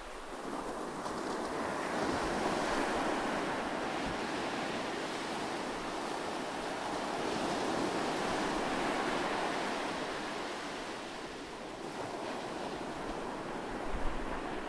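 Steady rushing noise that swells and eases slowly over several seconds, like surf washing on a shore.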